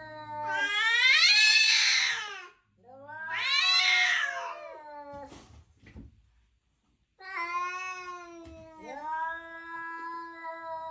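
Domestic cats yowling at each other in a standoff. Two long yowls rise and then fall in pitch, and after a pause of about two seconds comes a long, low, drawn-out yowl.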